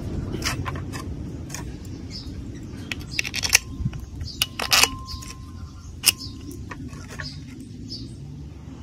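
Scattered clicks and knocks of metal parts being handled on a two-stroke brush cutter engine under assembly, the loudest about three and a half, five and six seconds in, over a faint low rumble.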